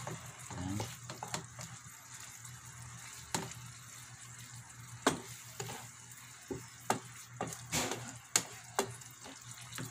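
Wooden spatula stirring chunks of tuna in simmering coconut milk in a nonstick frying pan: irregular clicks and knocks of the spatula against the pan over a faint steady sizzle.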